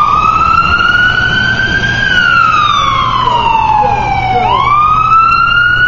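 Fire department ambulance's siren on a slow wail: a loud tone climbs for about two seconds, slides down over the next two and a half, then climbs again near the end.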